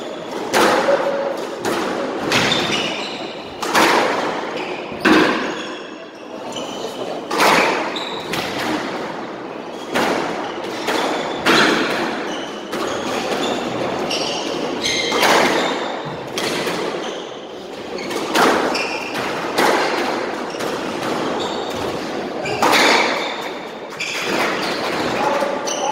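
Squash rally: the ball cracks off the rackets and hits the walls about once a second, echoing in the court, with shoes squeaking on the wooden floor.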